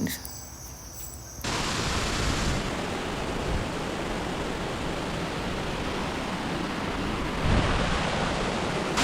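Chipota Falls' water rushing down its rocks: a steady, even roar that comes in abruptly about a second and a half in after a quieter moment.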